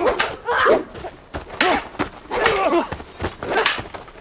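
Armoured fighters grunting and crying out with effort as they grapple and spar, mixed with sharp knocks and clatter of blows and plate armour.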